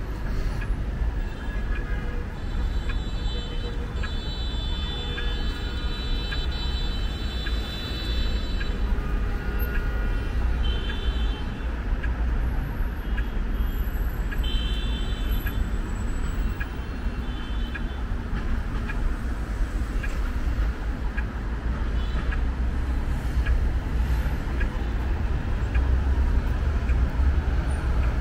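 City street traffic: a steady low rumble of passing cars, buses and scooters. High steady tones come and go in the first half.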